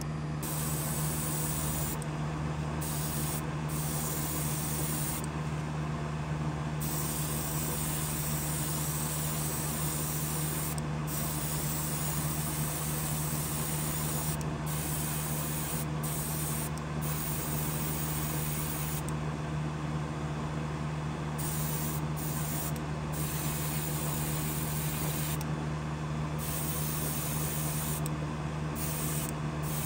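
Airbrush spraying paint onto small model parts, a steady hiss that stops briefly many times as the trigger is let off, over the constant hum of a small air compressor.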